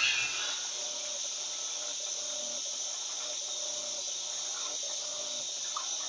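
LT12F 12 kg top-load washing machine agitating a load of bedding in water on a heavy-soil, high-water-level cycle. Water splashes and churns steadily, under a faint motor hum that comes and goes in a regular rhythm.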